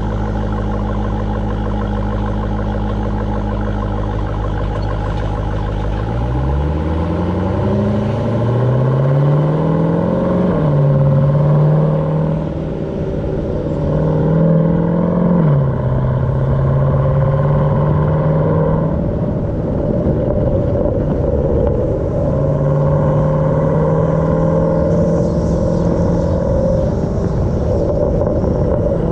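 Jeep Grand Cherokee Trackhawk's supercharged 6.2-litre Hemi V8 running at a steady pitch, then accelerating about six seconds in, its note rising and dropping sharply at two upshifts before settling into a steady cruise.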